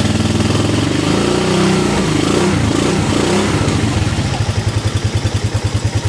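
Rusi DL150's single-cylinder engine running in first gear, the throttle opened about a second in so the pitch rises and falls for a few seconds before settling back to an even putting. The owner calls its flat-slide carburetor and piston noisy.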